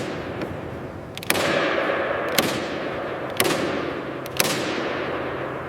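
Hammer blows on metal, about one a second, each ringing out with a long echoing tail.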